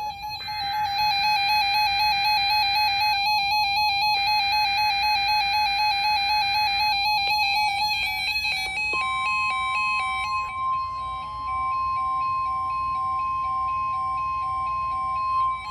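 Emergency Alert System header: two long bursts of harsh digital data screech over a repeating two-note electronic chime, then about nine seconds in a steady single-pitch alert tone sounds, with the chiming going on under it. The steady tone is the kind of attention signal that opens a weather-alert broadcast.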